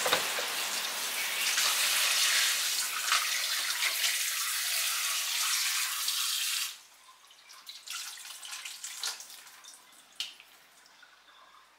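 Tap water running into a stainless-steel sink and splashing over raw chicken pieces being rinsed by hand. The running water cuts off suddenly about two-thirds of the way through, followed by quieter splashes and trickling as rinse water is poured off from the bowl into the sink.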